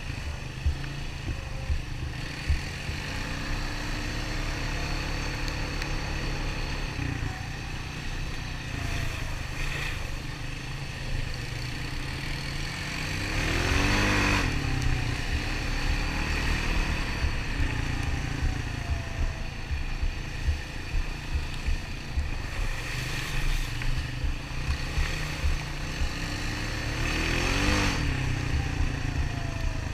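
Honda ATV engine running under way on a dirt trail, with a steady low rumble and uneven knocks. The revs rise and fall about halfway through and again near the end.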